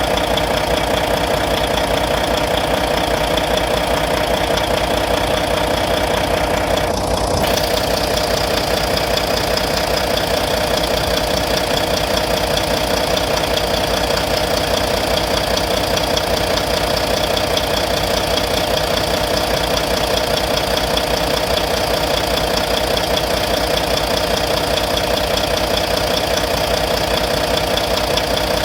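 Volvo D13 inline-six diesel idling steadily with a rapid tapping tick, which the owner takes for lifter noise that started after the injectors were replaced.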